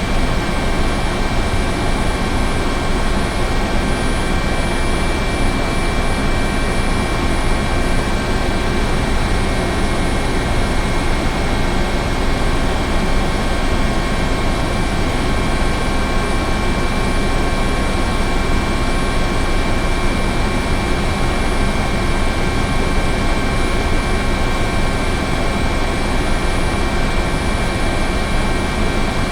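Helicopter running at a constant level: dense, unchanging engine and rotor noise with several steady high whining tones over it, without any rise or fall.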